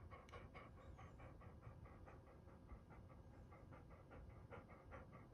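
Dog panting softly in quick, even breaths, about four or five a second.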